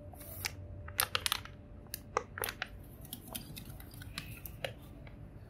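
Plastic wrapping crinkling and crackling as it is crumpled in gloved hands, a run of irregular sharp crackles and clicks, thickest about one to two and a half seconds in.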